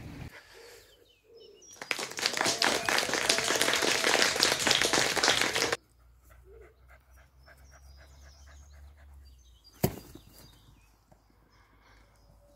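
A dog panting loudly close to the microphone for about four seconds, stopping abruptly. Afterwards faint birdsong and one sharp click.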